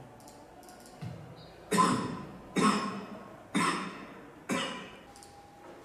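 Four hard coughs about a second apart, played back as a recorded sample of a symptomatic COVID-19 patient's cough.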